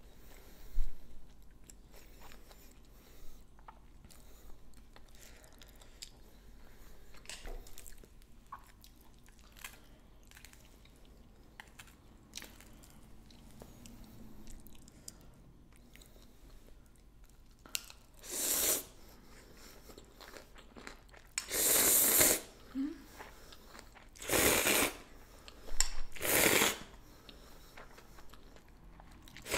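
A person slurping cold chewy noodles: about four loud, short slurps in the second half, after a quieter stretch with faint clicks of chopsticks against a metal bowl.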